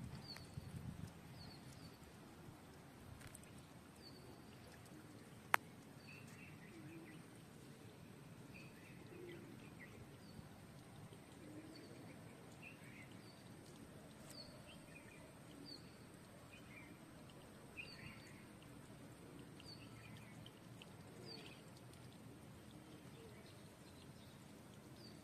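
Faint birds chirping here and there over quiet outdoor background noise, with one sharp click about five and a half seconds in.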